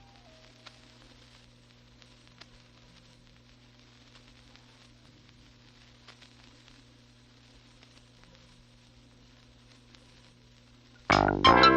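Near-silent gap between music tracks: a faint steady hiss and low hum with a few soft clicks. New music starts abruptly about eleven seconds in, with quick, bright notes.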